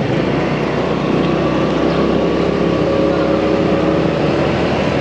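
Motorcycle engine running steadily, its pitch rising a little about two seconds in.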